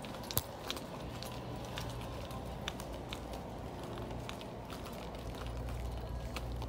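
Steady low room hum inside a large department store, with scattered light clicks and ticks, the sharpest one about half a second in.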